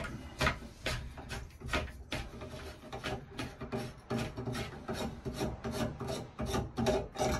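Metal tub socket wrench being turned by hand on a Gerber three-handle tub/shower valve stem, loosening it out of the valve body: a steady run of short scraping, grating strokes, about three a second.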